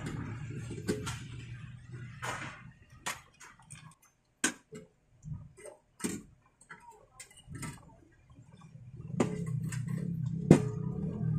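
Scattered small clicks and taps from hands working wire connectors, screw terminals and a screwdriver in a rice cooker's base while its wiring is reconnected. The sharpest click comes near the end. A low steady hum underlies the first couple of seconds, fades, and comes back near the end.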